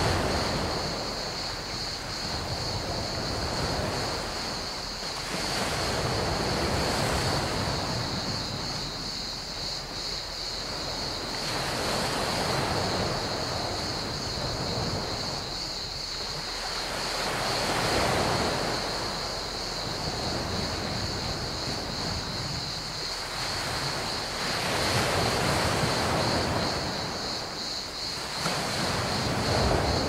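Small sea waves washing onto a pebble beach, a rush that swells and fades about every six seconds. Behind them, crickets chirr in a steady, high, unbroken drone.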